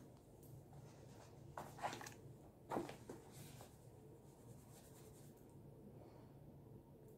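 A hardcover notebook and ballpoint pen being handled and written with: a few soft knocks and rustles in the first three seconds, then faint pen scratching over quiet room tone.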